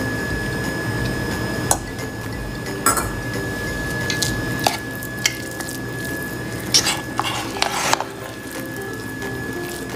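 Steel spoon stirring thick, soft-cooked ven pongal in a nonstick pressure-cooker pot, with scattered clicks and scrapes as the spoon knocks against the pot.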